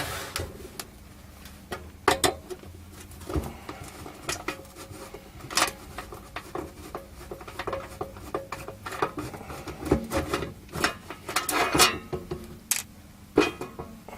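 Irregular metallic clicks and clinks of a screwdriver and screws being taken out of a bench power supply's metal case.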